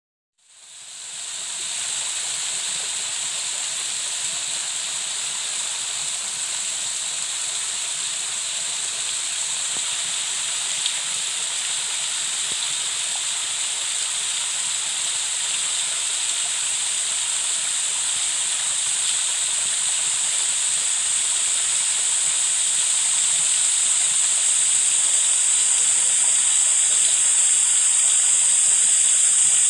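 Steady high-pitched hiss of outdoor ambience, fading in at the start and growing slowly louder.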